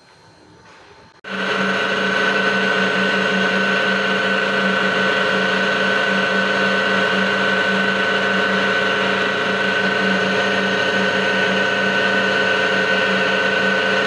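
Electric hoist motor and gearbox of a 15-ton overhead crane starting abruptly about a second in and running steadily with a high whine over a low hum. The mechanics trace this noise to inside the gearbox.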